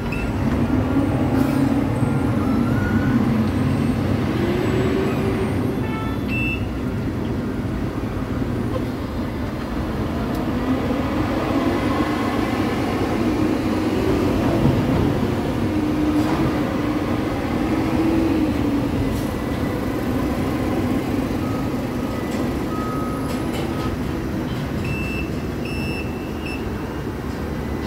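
Automated container crane working over a semi-truck to lift the container off its chassis: a steady machinery drone whose motor pitch slowly rises and falls, with a few short beeps near the end.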